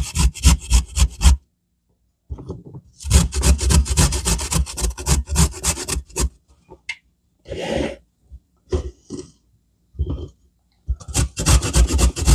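A carrot being shredded on a metal box grater: quick, even strokes in three runs, with a pause of several seconds in the middle broken by a few short scrapes.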